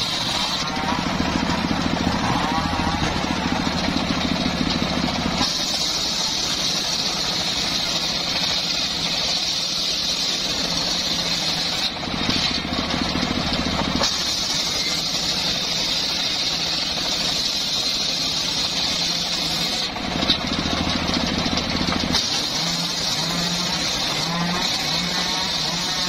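Engine-driven homemade circular sawmill running, its large blade ripping timber and boards, over the engine's steady drone. The sound switches abruptly several times between a heavier, lower running sound and a brighter, high-pitched blade whine.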